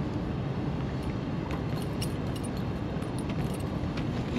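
Faint metallic clinks of a spinnerbait's blades and hook as it is worked out of a landed bass's mouth, over a steady low rumble of outdoor background noise.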